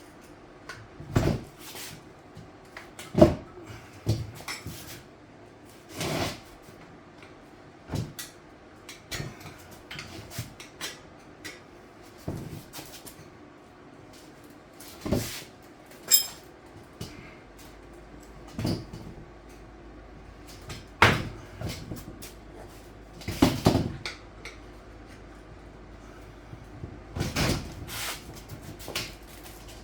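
8-inch steel tire spoons clacking and scraping against a dirt bike wheel rim as the tire bead is levered over by hand. The knocks and clunks come irregularly, a second or more apart, and the loudest is about three seconds in.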